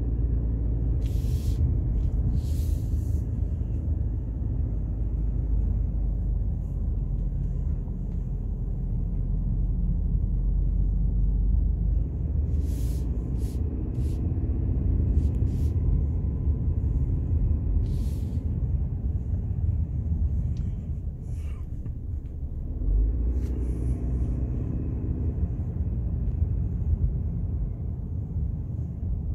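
Car driving slowly, heard from inside the cabin: a steady low engine and road rumble, with the engine note coming up more strongly twice, and a few faint clicks.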